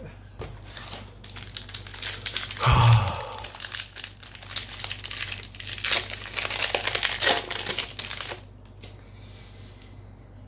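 A trading-card booster pack's foil wrapper crinkling and tearing as it is pulled open by hand, with the loudest burst about two and a half seconds in; the crinkling stops about eight seconds in.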